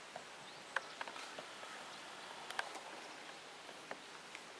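Quiet outdoor ambience: a faint steady hiss with a few scattered short chirps and ticks.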